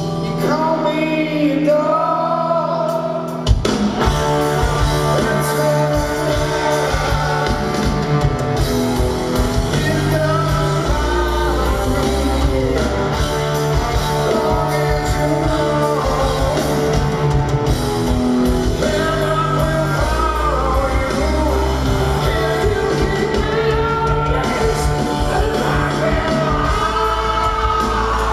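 A rock band playing live in a large hall: a male lead vocal over electric guitars. About three and a half seconds in, the drums and bass crash in with a sharp hit, and the full band plays on under the singing.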